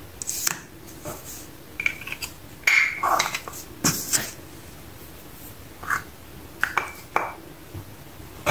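Small plastic toy plates clacking and tapping as they are set down on a table: a run of short knocks, some with a brief ring, busiest around three to four seconds in.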